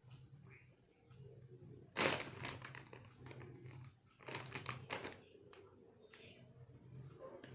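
Empty plastic snack wrapper crinkling in two bursts of crackling, with a few lighter crinkles after them.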